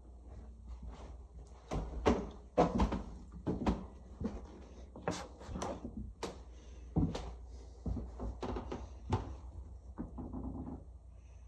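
A run of irregular knocks and bumps, loudest about two to three seconds in, with lighter clatter between them.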